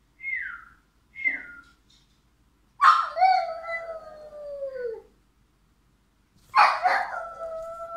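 Pekingese dog giving two short falling whines, then howling twice, each howl long and sliding down in pitch.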